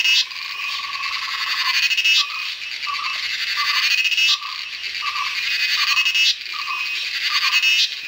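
Cicada calling: a loud, high buzzing song that swells over about two seconds and cuts off suddenly, repeating about four times. Underneath it runs a lower, pulsed call of about two notes a second.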